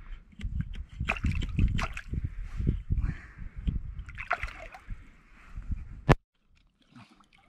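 Rock-pool water sloshing and splashing in irregular bursts as a hand feels about under a rock for ormers (abalone). A sharp click about six seconds in, then near silence.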